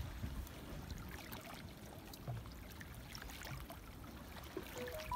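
Small sea waves lapping and washing against the rocks of a breakwater, with scattered light clicks from a spinning reel being handled. Near the end come a few short high notes, each higher than the last.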